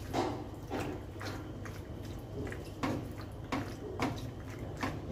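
Spatula stirring and folding penne through a thick creamy sauce in a nonstick frying pan: short wet squishing strokes, irregular, about one every half second to second.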